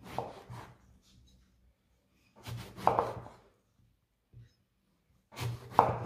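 Chef's knife slicing through an eggplant and knocking on a wooden cutting board, in three short bursts of cuts about two and a half seconds apart.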